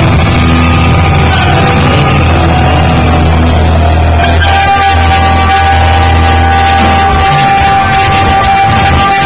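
Live rock band playing loud, with electric guitar and bass. About halfway through, a single high note is held. The deep bass drops out near the end.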